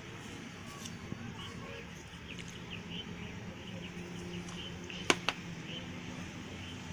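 Two sharp clicks close together about five seconds in, from hands handling metal parts at the exposed clutch side of a motorcycle engine. Under them a low steady hum and faint high chirps.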